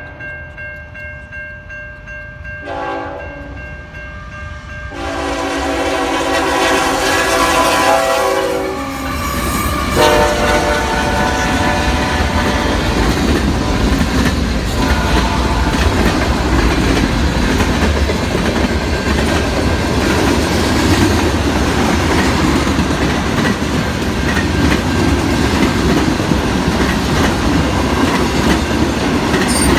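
Freight train horn sounding at a grade crossing: a short blast about three seconds in, a long blast from about five seconds, and another short blast near ten seconds. Then the locomotives and a long string of freight cars pass close by with a steady heavy rumble and wheel clatter.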